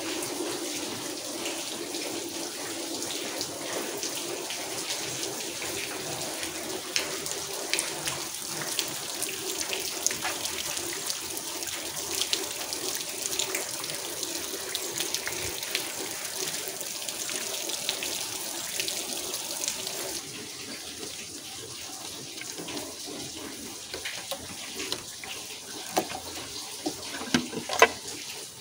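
Steady rain falling, a fine hiss dotted with tiny drop ticks, easing a little about two-thirds of the way through. Near the end a few sharp clicks and knocks come as hands work at the engine's coolant hoses.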